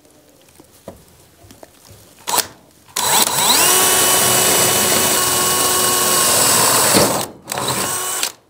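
Cordless drill boring a hole through a wooden shed wall: a short blip of the trigger, then about three seconds in the motor spins up to a steady whine and drills for about four seconds before winding down, with one more short burst near the end.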